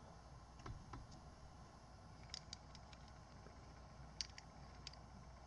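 Faint, scattered metallic clicks of a small open-end wrench tightening the 8 mm locking nut on a carburetor top cap's cable elbow, over near-silent room tone.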